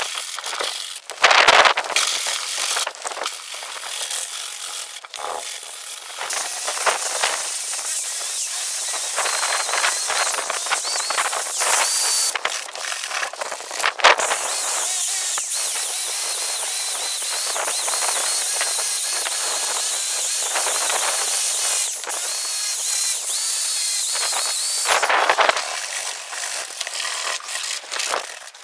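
Electric sander grinding down dried body filler on a van's steel door, a steady hissing scrape with a faint high motor whine. It runs in short, uneven bursts for the first few seconds and again near the end.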